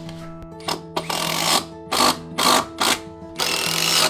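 Cordless power driver run in about six short bursts of varying length, starting about a second in, driving a screw into the base of a wooden deck post. Background music plays underneath.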